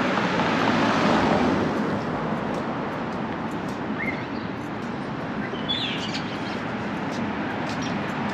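City street traffic with a steady wash of road noise, a vehicle going by loudest in the first couple of seconds. A few short bird chirps come through near the middle.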